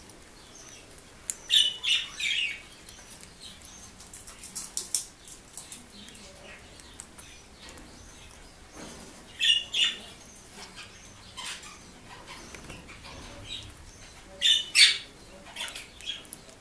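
Senegal parrots giving short, high chirps in quick clusters, three times, with soft clicks and pecking in between while they eat a strawberry.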